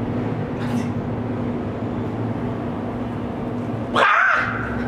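A man gives a short, loud, yelp-like cry about four seconds in, lasting about half a second, over a steady low room hum.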